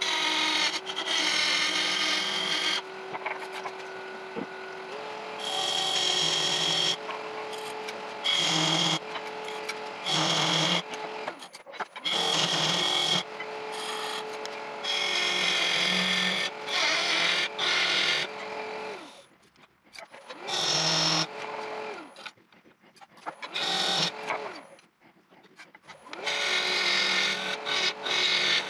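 Laguna wood lathe running with a steady motor hum while a long-handled turning tool cuts the spinning wooden blank in repeated passes, each cut a burst of hissing, scraping noise. The motor hum stops for a few seconds past the middle, then starts again.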